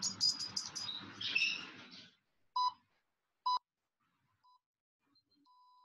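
A noisy burst with quick high chirps for about two seconds, then two short electronic beeps about a second apart and a long steady beep near the end from a phone interval timer signalling the end of the exercise period.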